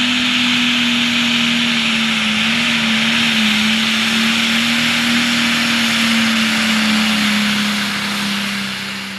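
Turbocharged diesel Super Stock pulling tractor at full throttle under load as it drags the sled, a loud, steady engine note with a hissing roar over it, fading away near the end.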